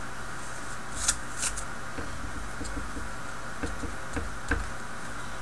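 Light metal clicks and taps as the small pins and parts of an American A1100 padlock are handled and set down while it is taken apart: two sharper clicks early, then a run of small ticks.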